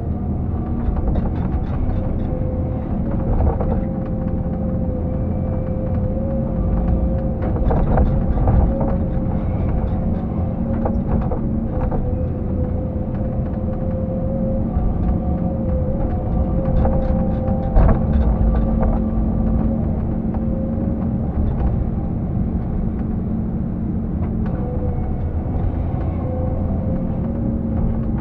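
XCMG XE 215BR hydraulic excavator's diesel engine running steadily under load as heard from the cab, with a steady whine over the low rumble while the boom and bucket work in the water. A few sharp knocks and clanks from the machine come through.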